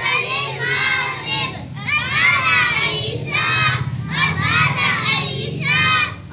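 A group of young boys reciting a rhyme together in unison, in short phrases with brief breaks between them.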